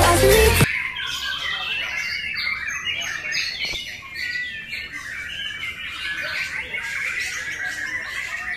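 White-rumped shama (murai batu) singing a rapid, varied run of whistled notes that rise and fall. Electronic music cuts off suddenly within the first second.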